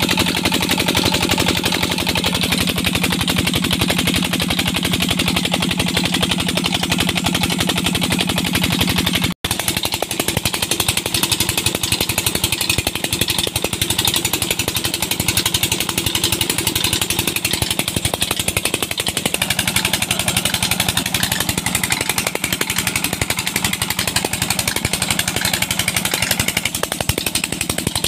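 Petter-type single-cylinder stationary diesel engine running steadily with a fast, even beat while it drives a tube well pump. The sound breaks off for an instant about nine seconds in, then the engine carries on.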